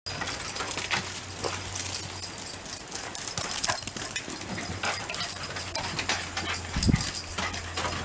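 Shiba Inu dogs moving about on concrete, their claws clicking and scuffling, over a steady low hum, with a dull thump near the end.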